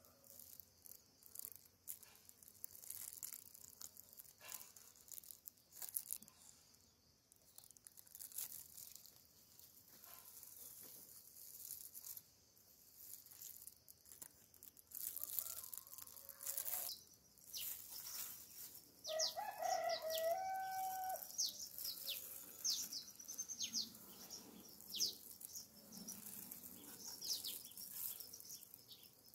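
Light handling rustles and crackles, with a rooster crowing once about two-thirds of the way in and small birds chirping through the second half. A faint hum of honey bees comes in near the end as the open hive comes into play.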